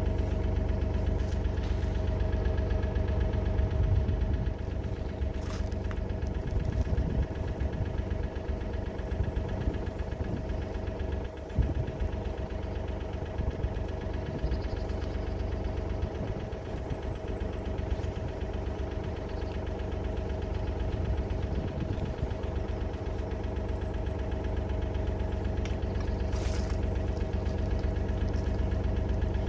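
Diesel engine idling steadily, with a single sharp knock about eleven and a half seconds in.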